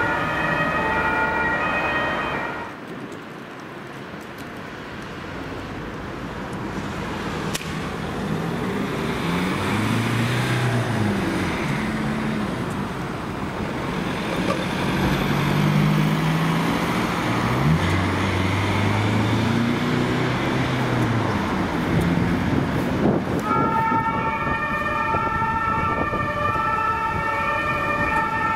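German two-tone emergency siren (Martinshorn) alternating between its two pitches, cutting off about two and a half seconds in. Then a Mercedes-Benz Sprinter ambulance's engine accelerates, its revs rising and falling through the gears, over traffic noise. The two-tone siren starts again near the end.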